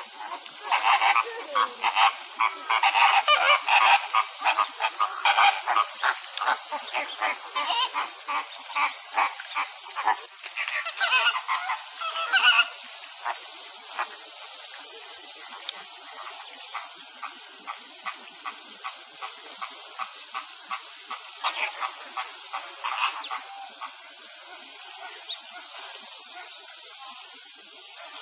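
A chorus of cicadas buzzing in a steady high drone. Over it, during roughly the first dozen seconds, comes a rapid run of pulsed calls from another animal, which then dies away.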